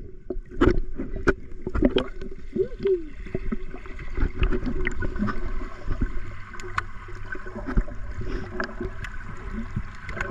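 Swimming-pool water heard from underwater: a muffled low rumble with bubbling and many irregular small clicks and pops as swimmers move nearby.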